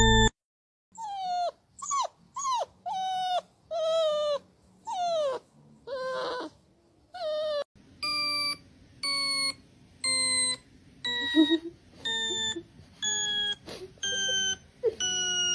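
A dog whining in a string of short, high whimpers that bend up and down in pitch, followed about halfway through by a steady run of short electronic beeps, repeating quicker than once a second.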